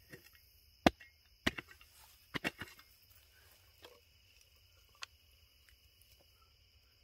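Dry twigs snapping as kindling is broken and laid on bare dirt for a campfire: a handful of sharp cracks in the first five seconds, the loudest about a second in. Beneath them night insects chirr steadily.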